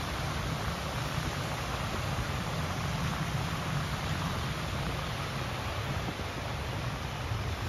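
Surf washing onto a sandy beach: a steady, even rush of breaking waves with a fluttering low rumble beneath it.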